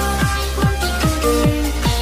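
Electronic dance track: a steady kick drum about two and a half beats a second under held synth notes and a sustained bass.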